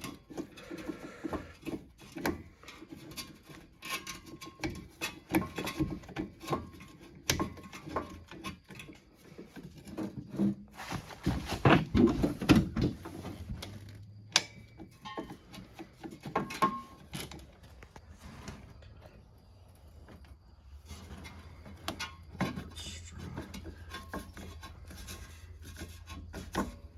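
Hand tools and parts being worked on a snowmobile: scattered clicks, knocks and scraping as a part is screwed and fitted back on, busiest about halfway through. A faint low hum comes in around the middle.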